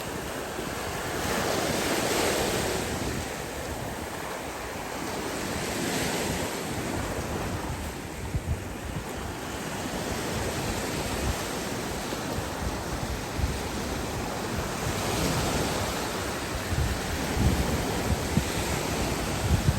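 Sea waves breaking and washing onto a beach, swelling and easing every few seconds, with wind buffeting the microphone in low rumbling gusts.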